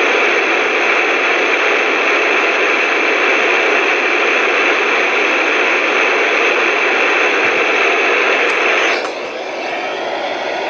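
Loud steady hiss of radio static from a weather radio receiver as the broadcast signal drops out. About nine seconds in the hiss turns quieter and thinner.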